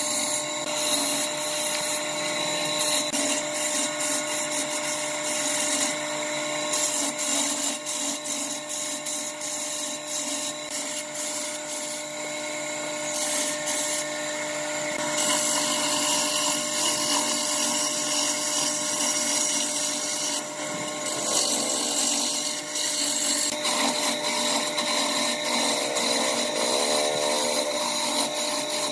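Wood lathe running with a steady hum while a hand-held turning chisel cuts a long spinning wooden spindle, giving a rough scraping hiss of shavings that changes as the tool is pressed on and eased off.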